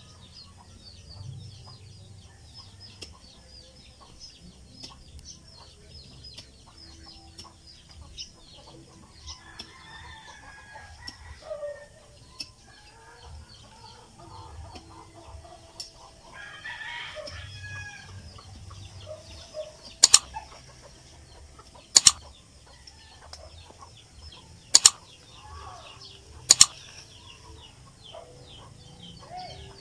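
Chickens clucking with a rooster crowing over a steady high chirring. Four sharp knocks come in the second half, about two seconds apart, and are the loudest sounds.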